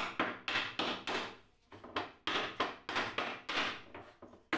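Hand hammer striking the protruding nails of an old wooden cabinet top, working them out of the board: quick repeated taps, about three a second, each with a short ring.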